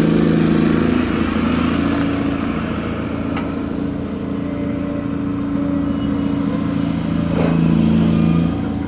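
Engine and machinery of an aggregate carrier's grab crane running during cargo handling, the engine note shifting as the load changes and easing off near the end, with a couple of sharp clanks.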